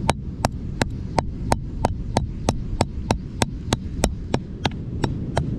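A butcher's knife chopping again and again into a mulloway's skull, about three strikes a second in a steady rhythm. It is hacking open the bony pocket behind the eye that holds the otoliths.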